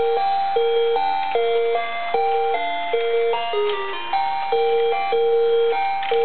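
Toy Christmas train's sound chip playing a simple electronic two-part melody of beeping notes, a tune stepping up and down over a lower note repeated about twice a second.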